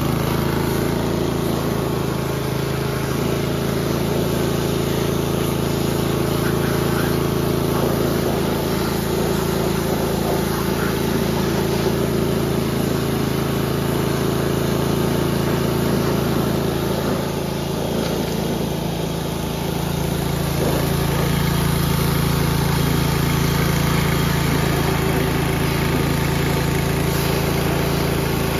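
Suzuki OHV GTS four-stroke engine of a Toro lawn mower running steadily, with the hiss of a pressure washer spray hitting the mower deck.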